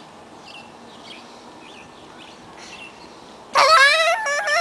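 Small birds chirping faintly, then about three and a half seconds in a rooster crows loudly: one call of about a second and a half that rises and steps in pitch.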